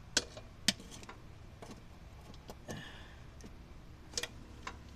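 Scattered sharp clicks and taps as small engine hardware, valve cover hold-down bolts and clamps, is handled and set down. There are about six, irregularly spaced, and the second, a little under a second in, is the loudest.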